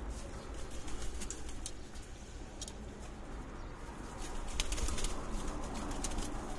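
Scattered small clicks and crackles of fingers picking pigeon eggshell away from a hatching squab, busiest about a second in and again near the end, with pigeons cooing in the background.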